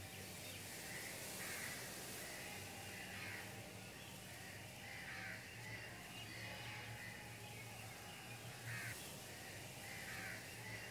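A bird calling over and over, one short call about every second and a half, faint over a low steady hum.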